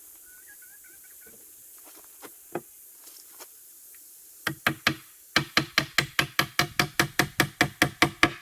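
Hammer striking nails into rough-cut wooden boards: a few scattered knocks, then from about four and a half seconds in a quick, even run of blows, about five a second.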